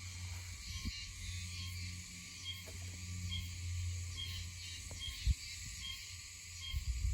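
Background insect chorus between cicada calls: a steady high hiss with faint short chirps repeating about once a second, over a low rumble. A single thump comes about five seconds in.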